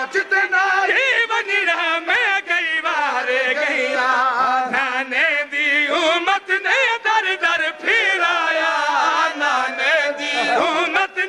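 A man chanting Punjabi majlis elegy (zakiri) into a microphone: long held notes whose pitch bends up and down in an unbroken melody.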